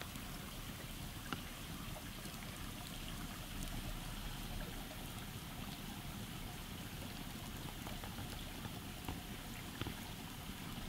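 Wood campfire crackling, with a few sharp pops, over a steady rush of stream water.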